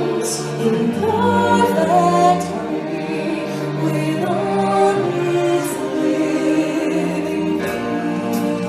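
Live stage-show music: a chorus of voices singing long held notes over the accompaniment, moving from note to note every second or so.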